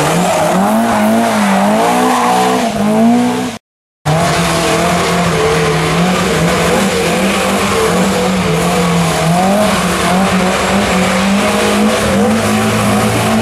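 Historic rally car engine running at high revs, its pitch rising and falling as the throttle is worked. The sound breaks off for a moment about four seconds in, then a steadier stretch of high-revving engine follows.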